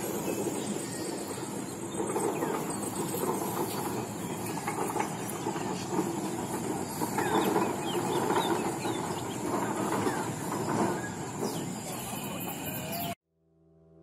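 Outdoor village ambience: birds calling and chickens clucking over a busy background noise, with a thin steady high tone. It cuts off suddenly about a second before the end.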